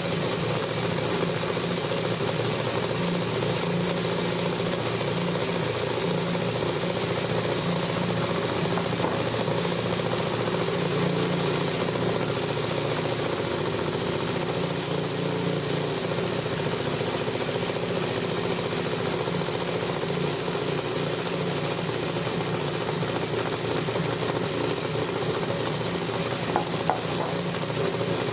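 Electric vibrating sieve shaker running with a loud, steady hum as it sifts freshly milled wheat flour, separating out the bran.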